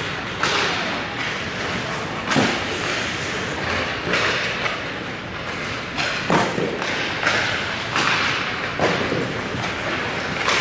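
Ice hockey pucks being shot and striking the goalie's pads, the boards and the ice: about half a dozen sharp cracks one to two seconds apart, over the steady scrape of skate blades on the ice.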